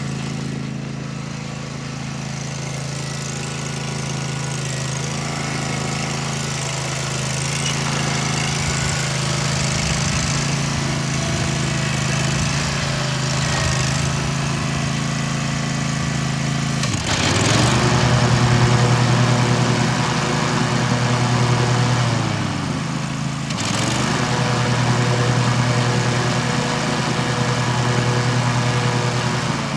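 Exmark zero-turn mower's 24 hp Kawasaki V-twin engine running steadily at a lower speed, then revved up to a higher, louder speed about halfway through. It dips briefly and rises again, then drops off right at the end.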